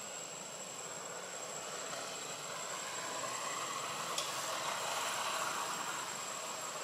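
Steady outdoor background ambience: an even hiss with a thin high steady tone, swelling a little in the middle, and a single faint click about four seconds in.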